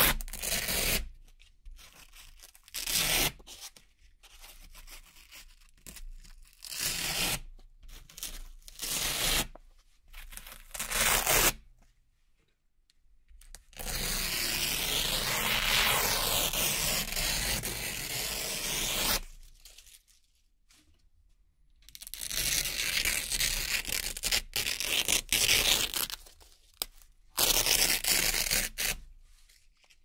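Velcro (hook-and-loop) patches and strips being peeled apart by hand, ripping one after another. Several short rips come first, then a long steady rip of about five seconds in the middle and more long rips near the end.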